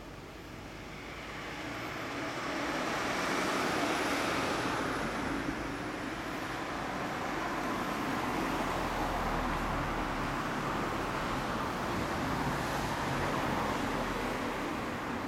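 A passing motor vehicle: a broad traffic rumble that swells over the first few seconds, holds steady, and fades near the end.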